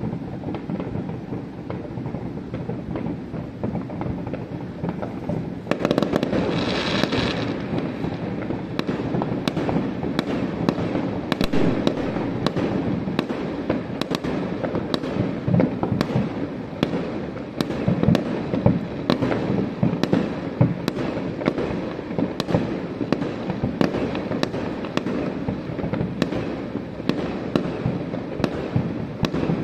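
Fireworks display: a continuous barrage of booms and crackling bangs that thickens about six seconds in, with a brief hiss at that point.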